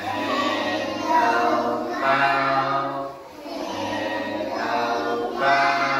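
A children's greeting song sung by several voices together in phrases over a backing track with held low notes.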